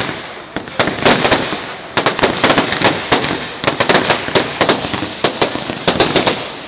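Fireworks display: a dense, continuous run of bangs and crackles, several a second, overlapping one another.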